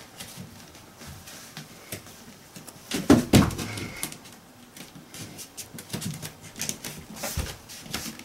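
Scattered light clicks and taps, with two louder knocks close together about three seconds in.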